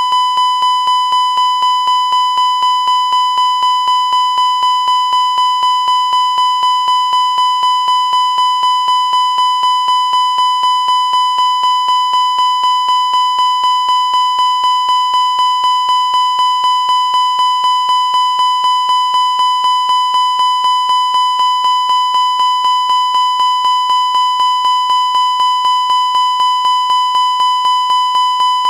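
Airbus cockpit master warning, the continuous repetitive chime: a high tone pulsing about three times a second without a break. It is the alarm Airbus aircraft sound for fire, overspeed or an unsafe takeoff configuration.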